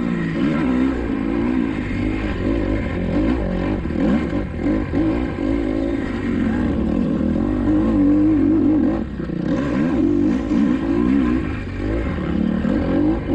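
Kawasaki KX250XC dirt bike engine revving hard under load, its pitch rising and falling over and over as the throttle is opened and closed, with a short dip about nine seconds in.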